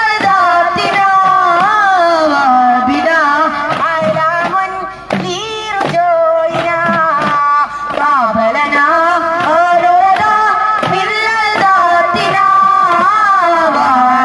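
A single high voice singing a melismatic devotional Mappila song, pitch gliding and ornamented, with sharp duff frame-drum strikes at intervals.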